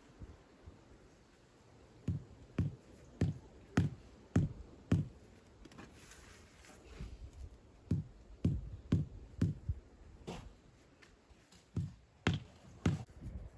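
Repeated hammering: short, dull thuds about half a second apart, in three runs of blows with pauses between.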